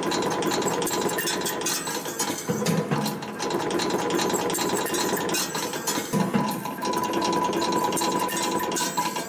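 CNC wire bending machine forming 2.0 mm steel wire. It runs with a steady high tone and rapid clicking and clatter, in a working cycle that repeats about every three and a half seconds.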